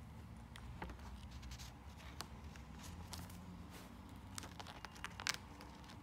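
Faint crinkling and scattered light clicks of a paper card being gripped and handled by a rose-ringed parakeet's beak, over a low steady hum.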